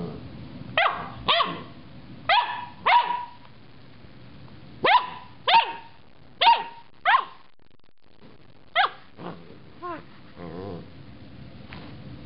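Samoyed puppy barking: eight short, sharp barks in four quick pairs, then a single bark, two softer yips and a brief wavering growl near the end.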